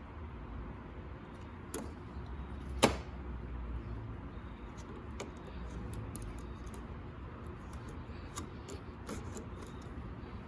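Scattered small clicks and knocks of patio door lock and handle parts being handled, with one sharper click about three seconds in, over a low steady background rumble.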